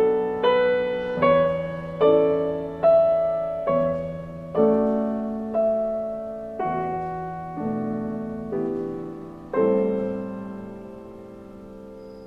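Slow solo piano music: single notes and chords struck roughly once a second, each left to fade, with a last long note fading near the end.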